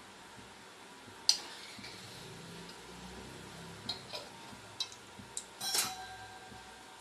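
Metal kitchen utensils clinking and tapping against a stainless steel pot: a sharp clink about a second in, a few lighter taps later, and a ringing clank near the end.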